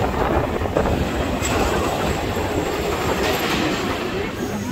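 Steel roller coaster train running along its track, a steady rumbling rattle of wheels on rail.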